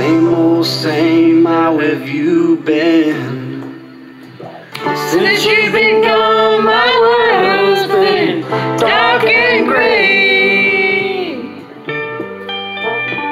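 Country song playing: singing over guitar.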